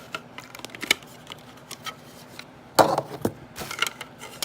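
Light plastic clicks and taps from handling a FireX FXB-1A battery-powered smoke alarm, with one louder knock about three seconds in.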